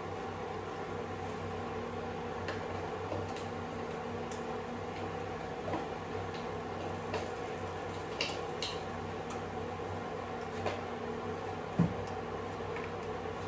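A steady mechanical hum from a running kitchen appliance, with scattered light clicks and ticks and one dull knock near the end.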